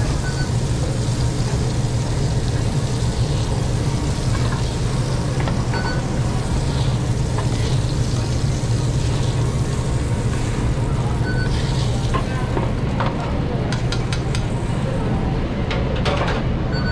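Sausage patties sizzling on a flat-top grill, with metal spatulas scraping the grill as they are lifted off. A steady low drone from the kitchen's hood and grill equipment runs underneath. Several sharp metal clicks come near the end.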